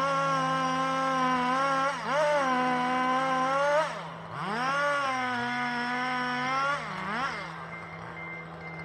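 Two-stroke chainsaw running at high revs, its pitch held steady for a second or two and then dipping and rising again several times as the throttle is let off and opened back up. A lower, steady engine runs underneath and drops slightly in pitch about five seconds in. The saw fades near the end.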